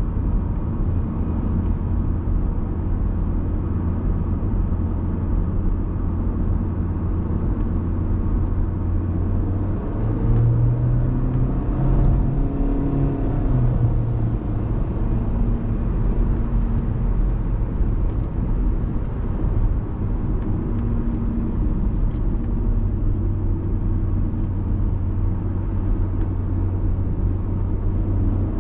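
Cabin noise of a 2016 Honda Civic at road speed: a steady low engine-and-road drone with tyre hiss. About ten seconds in, the drone rises in pitch and gets a little louder as the car speeds up, then drops back as it eases off.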